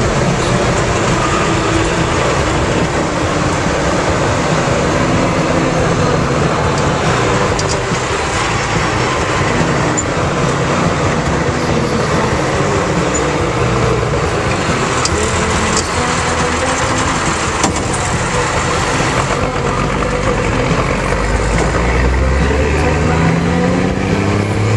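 Engine of a 1969 M35A2 2½-ton army truck running steadily under load, heard from inside the cab while driving. Near the end the engine note rises as the truck accelerates.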